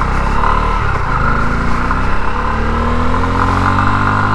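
Bajaj Pulsar F250's single-cylinder engine running under way. There is a brief break about a second in, as at a gear change, then its pitch rises steadily as the bike accelerates.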